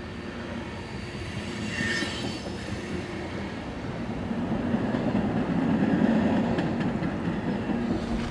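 A train passing on the tracks at the far end of a culvert: a steady rumble of rolling wheels that grows louder toward the last few seconds, with a brief high wheel squeal about two seconds in.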